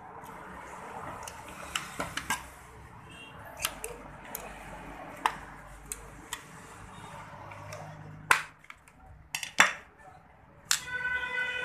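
Plastic clicks and knocks as a laser toner cartridge is handled and worked at, irregular throughout, with a couple of louder knocks about eight and nine and a half seconds in.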